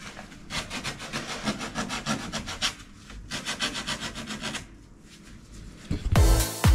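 Sandpaper rubbing in quick back-and-forth strokes over the epoxy-and-fibreglass-coated wooden layup form, with a short break partway through, stopping about two-thirds of the way in. Electronic music comes in near the end.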